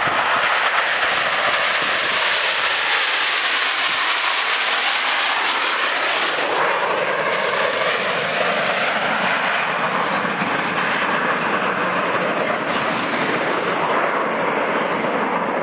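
A formation of Snowbirds CT-114 Tutor jet trainers flying low past the field. Their turbojets make a loud, steady roar, with a whine that slides lower as they go by.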